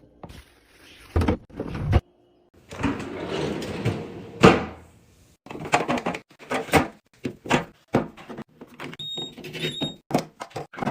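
Handling noises from refrigerator organizing: a run of separate knocks and clunks as containers and items are set down and doors or drawers are moved. There is a stretch of rustling hiss a little under three seconds in.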